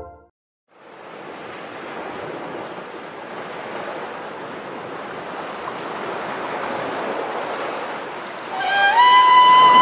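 Ocean surf washing in, a steady hiss of waves that fades in after a moment of silence. Near the end a held musical note comes in over it, steps up in pitch and is louder than the surf.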